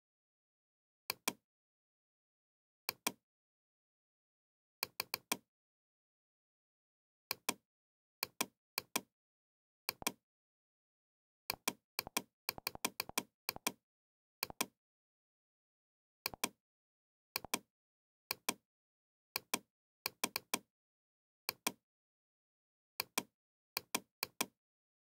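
Computer mouse clicks, single and in quick pairs of press and release, at irregular intervals with dead silence between them.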